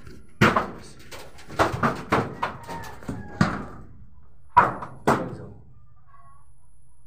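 A series of sharp knocks and thumps, about a dozen in the first five seconds, from a phone camera being handled and set down against wooden boards. The last of them come about five seconds in, and then the sound quiets.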